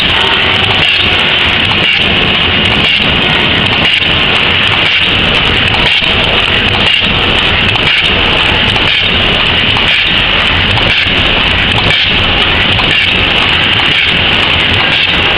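Automatic paper cup forming machine running at speed: a loud, steady mechanical clatter and hiss with a regular knock about once a second.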